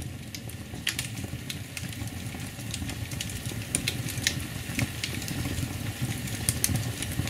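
Open log fire burning in a grate, irregular sharp crackles and pops over a steady low rumble of the flames.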